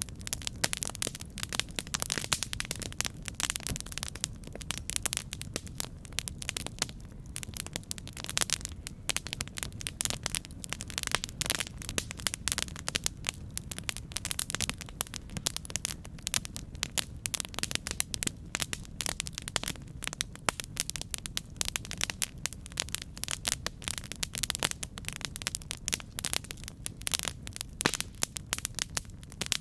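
Campfire burning with dense, irregular crackling and popping of the wood over a steady low rumble of the flames.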